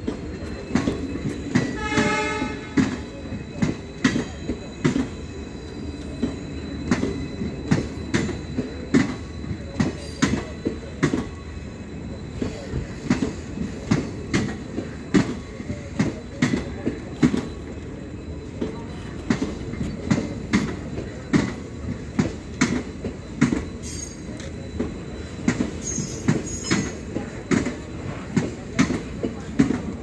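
Passenger coaches rolling past, their wheels knocking over the rail joints in a steady clickety-clack over a low rumble. A brief horn blast sounds about two seconds in.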